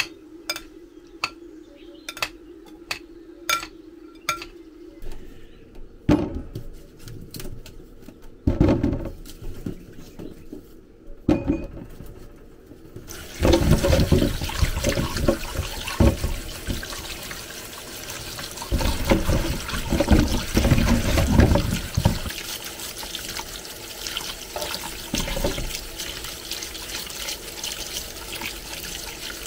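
Water running steadily into a sink, with louder splashing surges now and then. Before the water starts there is a quick series of light knocks, about two a second, then a few separate handling knocks.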